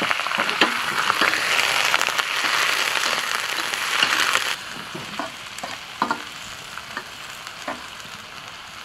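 Pieces of meat and ginger sizzling in hot oil in an iron wok while a metal ladle stirs them. The sizzle is loud at first and falls off sharply about halfway through, leaving a softer frying hiss with a few clicks and scrapes of the ladle against the wok.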